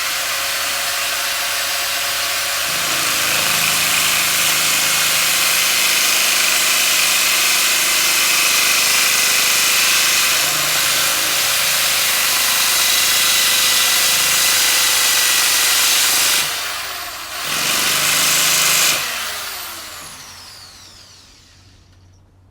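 Electric power tool sanding a part to shape, running with a steady high whine and a loud gritty rasp as it bites. It eases off briefly about 16 seconds in, runs again, then is switched off about 19 seconds in and winds down with a falling whine.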